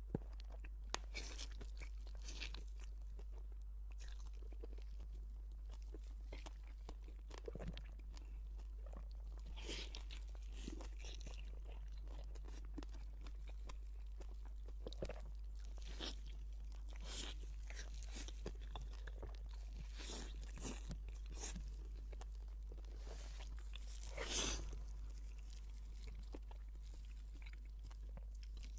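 Close-miked eating sounds: a person biting and chewing crunchy food, with scattered crunches, the loudest about 24 seconds in, over a steady low hum.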